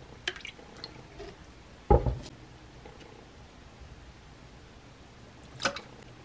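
Kitchen handling sounds: a few light clicks just after the start, a single heavy thump about two seconds in, like a bottle being set down on a wooden table, and a sharp click near the end.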